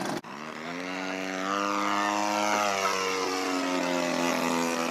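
Model aircraft engine and propeller running. The sound breaks off sharply for an instant just after the start. It then rises in pitch over about a second and holds steady, dropping slightly in pitch around the middle.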